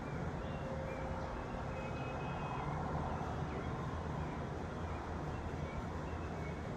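Dry-erase marker writing on a whiteboard, with faint short squeaks, over a steady low background rumble.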